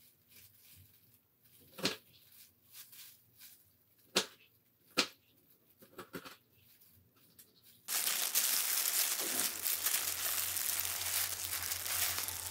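A kitchen knife slices through a pickled radish and knocks on a wooden cutting board, a few sharp strokes one to two seconds apart. From about eight seconds in, a steady crinkling, rustling hiss takes over.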